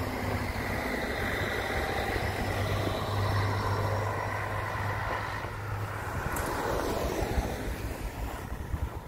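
City bus driving past: a steady low engine hum with tyre noise that is loudest about three to four seconds in, then fades as the bus moves away.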